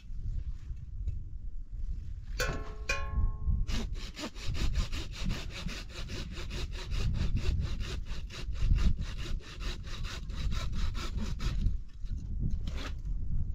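Hand saw cutting through wood in quick, even strokes, about five a second, for roughly eight seconds before stopping.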